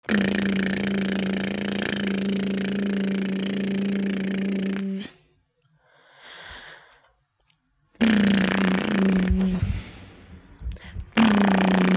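A person's voice making a steady, low buzzing hum on one held note for about five seconds. After a pause with a faint breath, two shorter held hums of the same pitch follow, one about eight seconds in and one near the end.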